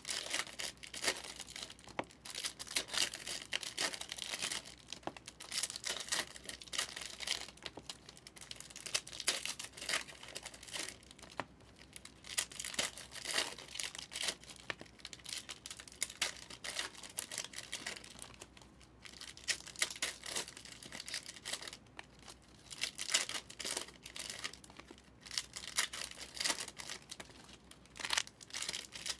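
Plastic wrapping on trading-card mega boxes and their packs crinkling and tearing as they are ripped open, in irregular bursts of crackle.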